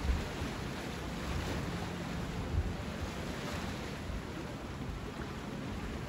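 Sea surf washing steadily on the shore, with a sea breeze gusting on the microphone in several short low rumbles.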